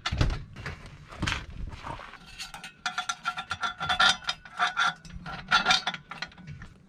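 Metal exhaust hardware being handled and fitted by hand: quick metallic clicks, clinks and scrapes of nuts and bolts against the steel exhaust flanges, busiest in the second half with a faint ringing behind the clicks.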